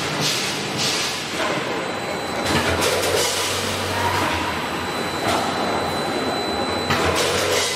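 Automatic granule filling machine running: the turntable indexes glass jars under the filling hopper while the conveyor and drive motor run steadily, with a thin high whine. A louder rush of noise comes every two to three seconds.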